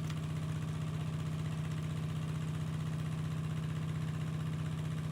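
An engine idling steadily with a rapid, even pulse and a strong low hum, unchanging throughout.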